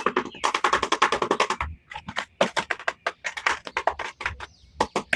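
A rapid run of sharp clicks and taps, about ten a second for the first second and a half, then more spaced and irregular.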